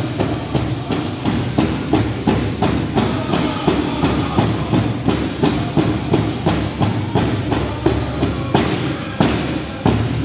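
Powwow drum struck in a steady, fast beat, about three strikes a second, with a few harder strikes near the end.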